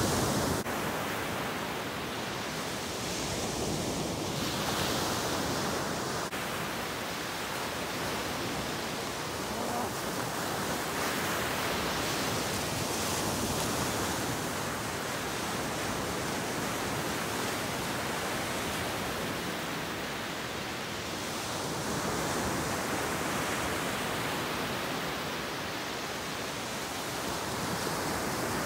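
Ocean surf breaking on a beach: a steady rush of white water that swells and eases every few seconds as each wave breaks and washes in.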